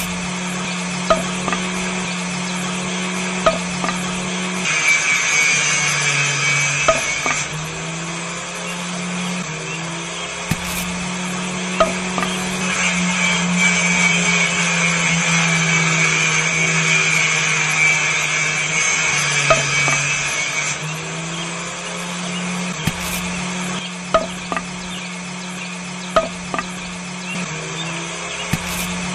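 Small electric motor of a miniature homemade cut-off saw running steadily, its pitch sagging and a higher grinding hiss joining in as the spinning disc cuts through thin green sticks: briefly about five seconds in, then for about seven seconds from the middle. Scattered sharp clicks.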